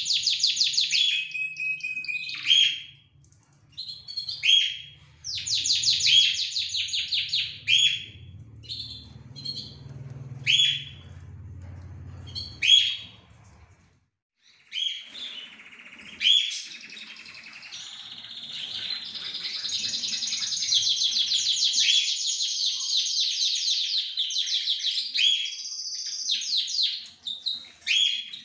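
Scotch Fancy canary in full song: phrases of rapid trills and chirps with short pauses between them. After a brief break about halfway, the song runs on in one long unbroken stretch of trilling.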